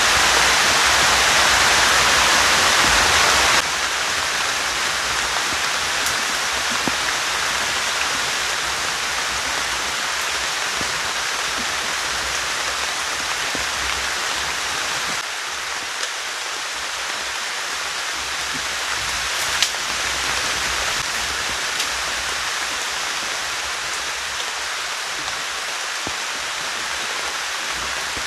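Heavy rain falling, a steady hiss with a few single drops tapping louder. It steps down in level suddenly about three and a half seconds in and again about halfway.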